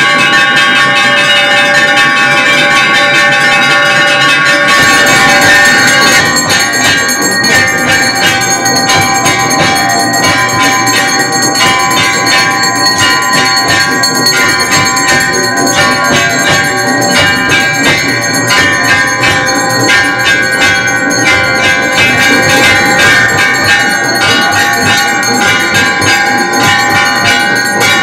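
Hindu temple bells clanging rapidly and without pause, several ringing together in a dense metallic din. A bright hiss over the top eases after about six seconds.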